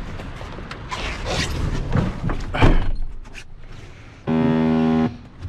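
Knocks, clicks and rattles of things being handled inside a truck cab. Near the end comes one steady pitched tone, a little under a second long.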